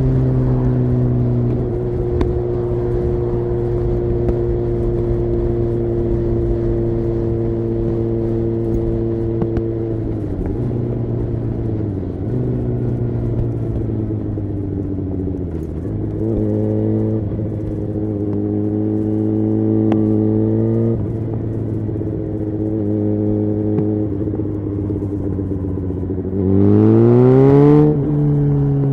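2009 Suzuki GSX-R 750 inline-four engine through a Yoshimura exhaust, running at steady revs for long stretches. The revs dip and recover twice. Near the end the engine revs up hard in a rising sweep, the loudest part, then drops off sharply.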